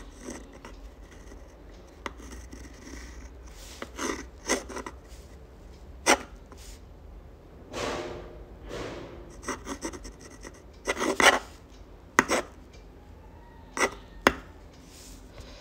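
Pen writing on textured sketch paper: a uni-ball Fine pen's nib scratching across the paper in quick strokes and loops, with a few sharp ticks.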